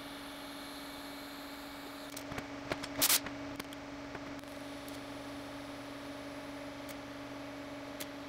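A steady electrical hum, with a few sharp clicks and a short, louder clatter about three seconds in.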